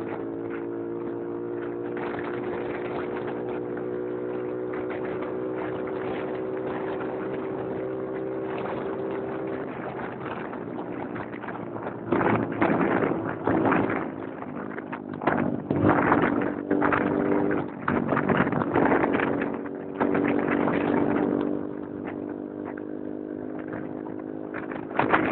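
Motorcycle engine running steadily at cruising speed. From about halfway, wind buffets the microphone in loud, irregular gusts over it.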